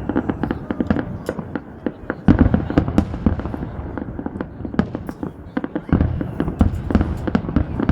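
Fireworks going off: a dense, irregular run of bangs and crackling. Heavier booms start about two seconds in and again about six seconds in.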